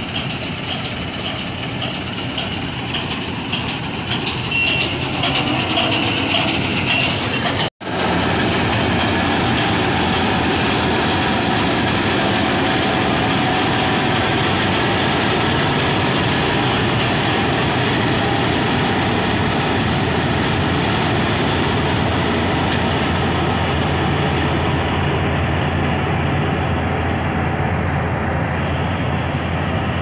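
Combine harvester running steadily as it cuts and threshes paddy rice: a loud, even mechanical drone of engine and threshing gear, with a momentary break about eight seconds in.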